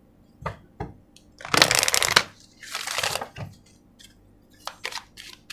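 A deck of oracle cards being shuffled by hand: a few light clicks, then two longer spells of rapid card flutter about one and a half and three seconds in, and more light clicks near the end.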